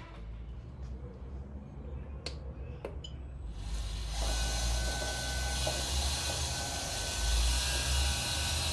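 A few sharp clicks, then from about three and a half seconds in a steady rushing hiss with a faint whine: a Green Mountain Grills Daniel Boone pellet grill's fan running during its startup sequence.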